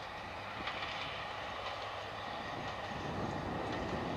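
A Class 55 Deltic diesel locomotive, powered by twin Napier Deltic two-stroke engines, approaches hauling a passenger train. Its running sound grows louder over the last second or so as it draws nearer.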